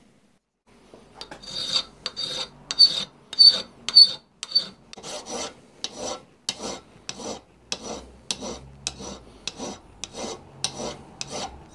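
Hand file rasping across the edge of an aluminium plate held in a bench vise, about two strokes a second, shaping the plate's end to a scribed radius. The strokes start about a second in, and the first few carry a high-pitched ring.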